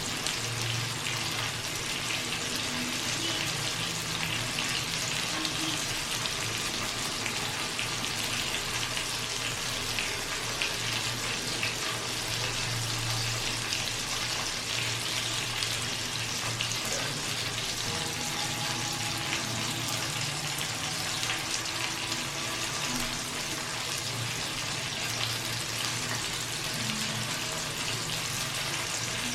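Chicken sizzling in hot fat, a steady dense crackle of small spits and pops over a low steady hum.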